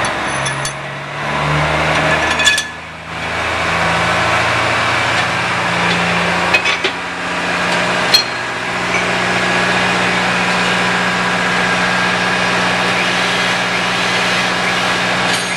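A machine motor running with a steady hum that shifts in pitch over the first few seconds and then holds, with a few sharp metal clinks from parts being handled in the press.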